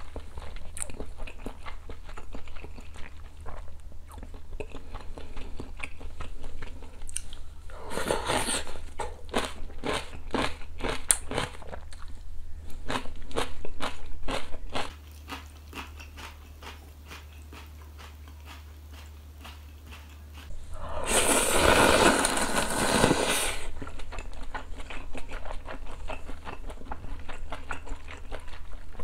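Close-miked eating sounds of a person chewing and biting a mouthful of ramen noodles and sundae hotpot. A run of quick wet clicks comes about eight to twelve seconds in, and a loud drawn-out noisy sound lasting about two seconds comes near twenty-two seconds.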